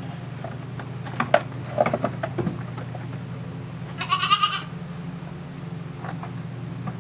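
A goat bleats once, a short wavering call about four seconds in, after a few sharp knocks, over a steady low hum.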